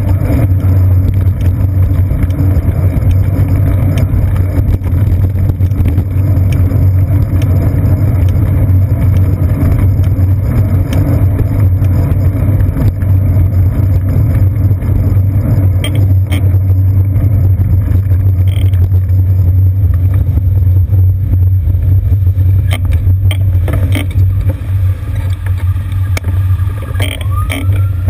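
Steady low rumble of city traffic and road noise, picked up by a GoPro Hero 2 mounted on a bicycle's seat post, with a few light clicks and a short rising squeal near the end.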